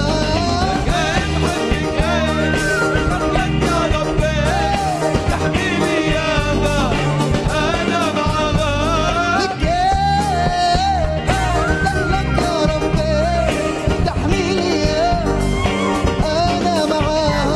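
Live band playing an upbeat Arabic pop song with a steady beat, a wavering melody line over it, and singing.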